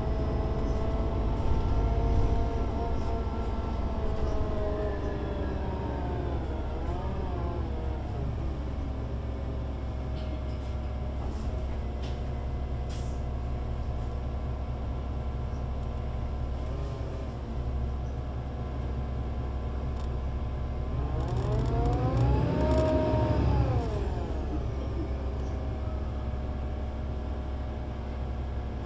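A Solaris Urbino 18 IV articulated bus's 240 kW DAF diesel engine and Voith Diwa 6 automatic gearbox running over a steady low rumble. Their whine falls away over the first several seconds as the bus slows. About three quarters of the way through it rises and then falls again as the bus speeds up and eases off.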